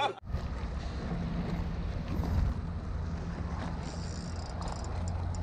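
Wind rumbling steadily on the microphone at the seafront during a fight with a hooked fish.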